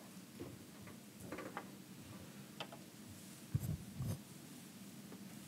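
Scattered soft taps, clicks and rustles of someone moving about and handling things at a lectern, with two dull thumps a little past halfway.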